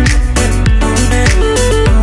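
Background music with a steady beat, a plucked guitar line and a deep bass.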